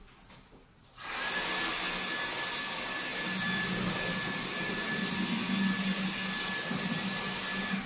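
Vacuum cleaner switched on about a second in: a steady rushing motor noise with a thin high whine, which winds down and stops at the very end.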